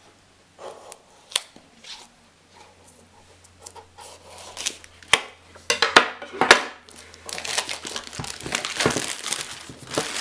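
Packaging being opened and torn by hand: scattered sharp clicks and scrapes at first, then continuous crinkling and tearing from about seven seconds in.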